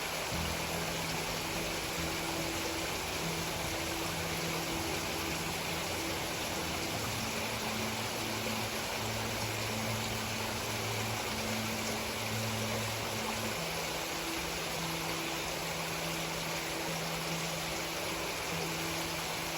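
Water running steadily in a small stream, an even rushing. Under it is a faint low hum that drops in pitch about seven seconds in and goes back up a few seconds later.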